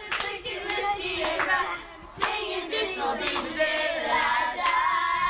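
A group of children singing together, some notes held, with a few sharp hand claps.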